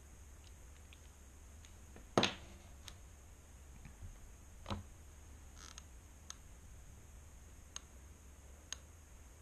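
A few small knocks and clicks of things handled on a desk, over a low steady hum: a sharp knock about two seconds in, a softer one near five seconds, then three faint ticks.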